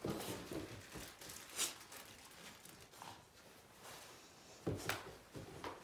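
Soft scuffing and footsteps on a carpeted floor as a puppy hops down from a low carpeted platform and moves about with its handler, with a few short sharper knocks, one about a second and a half in and a couple near the end.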